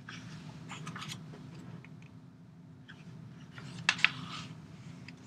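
Scattered clicks and taps from someone working a computer: a light cluster about a second in, then a sharper pair of clicks near four seconds in, over a steady low hum.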